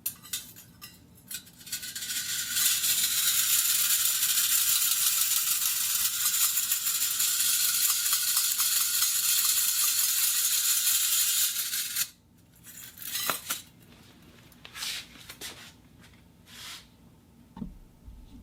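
Small metal gears and springs clicking, then a continuous high-pitched metallic rattling whirr for about nine seconds that cuts off suddenly, followed by scattered clicks and ticks.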